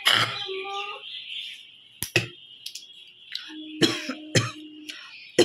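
A woman coughing on purpose: a loud cough right at the start, then a quieter stretch and a few short coughs near the end.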